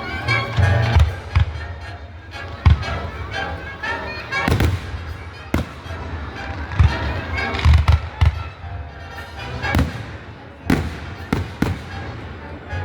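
Aerial fireworks shells bursting in an irregular string of loud bangs, a dozen or so, some in quick pairs, with deep booms between them.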